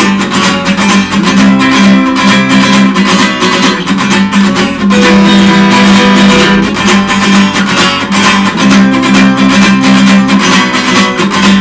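Rock song instrumental break between sung verses: guitars strumming and picking over a steady beat.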